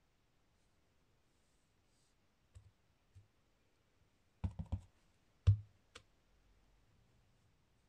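Hard plastic clacks from a clear acrylic stamping block being handled: a few faint clicks, then a quick run of four clicks about four and a half seconds in, followed by a louder single knock and a last click.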